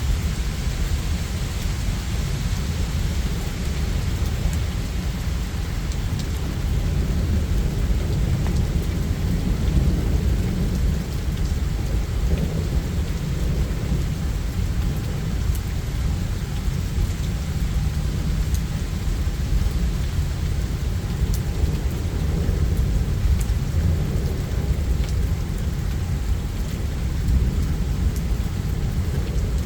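Steady heavy rain with thunder rumbling low and nearly without pause, with faint scattered raindrop ticks.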